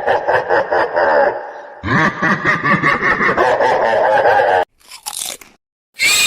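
Loud, dense crunching in two stretches: a short break just after a second in, then a longer run that cuts off suddenly at about four and a half seconds.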